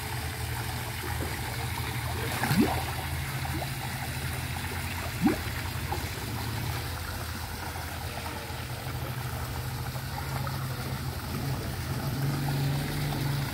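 Water from a backyard fish pond's recirculating return pipe splashes steadily into the tank over a low steady hum. Two brief, louder sounds stand out, about two and a half and five seconds in.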